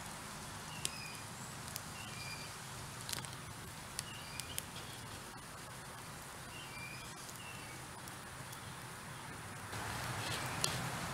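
Small wood campfire burning with a few sharp crackling pops, while birds chirp in short, repeated calls in the background.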